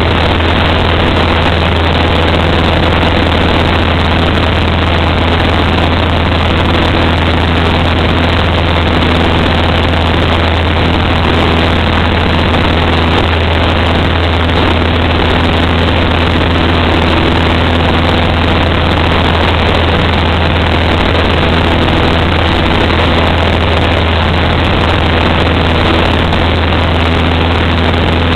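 Cessna's piston engine and propeller running steadily in flight, heard from inside the cabin as one unbroken drone with a strong low hum.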